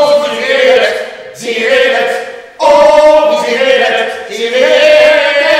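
Voices singing a cappella in a choral style: long held notes in three or four phrases, with short breaks between them.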